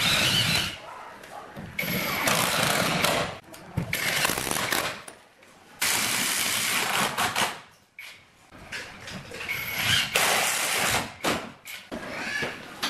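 Cordless drill driving screws into wooden column panels in several short bursts, a second or two each, with pauses between them.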